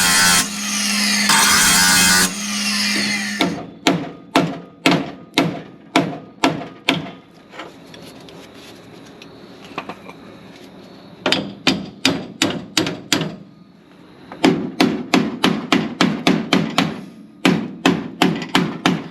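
A power tool runs for the first three and a half seconds and cuts off. Then a hammer strikes the steel frame flange of a car, in runs of quick blows about two to three a second, the later blows ringing metallically, to tap the welded, dented flange back into shape.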